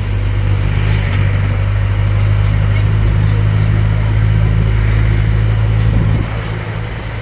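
Tourist road train's engine running with a steady low hum, the level easing off about six seconds in.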